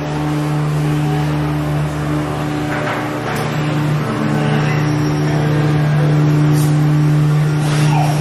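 Loud, steady low machine hum with a few brief knocks.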